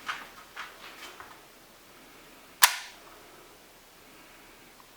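SIG Sauer P226 CO2 blowback pellet pistol firing a single sharp shot about two and a half seconds in, after a few faint clicks, with the next shot starting right at the end.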